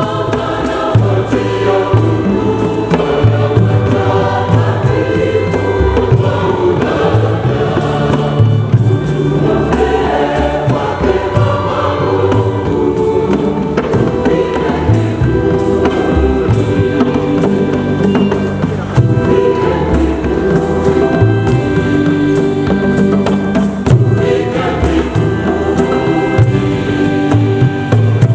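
Large Catholic choir singing a hymn in full harmony, with sustained chords over a steady beat from traditional Ugandan hand drums and brass-band accompaniment.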